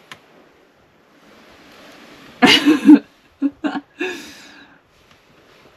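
A person's short wordless vocal sounds: one loud burst about two and a half seconds in, then a few quick shorter ones.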